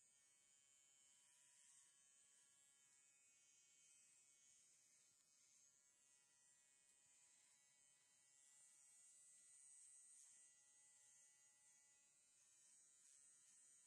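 Electric horse clippers running with a faint, steady buzz.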